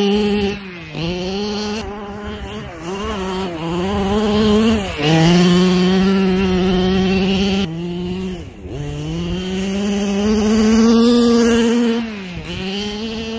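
Two-stroke gas engine of a large-scale RC buggy run at high revs, a high buzzy note that rises, holds and drops back about six times as the throttle is worked.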